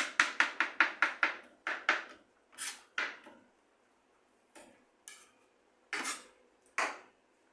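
Knife mincing garlic on a cutting board: a quick run of chopping strokes, about six a second, then a few slower, separate knocks.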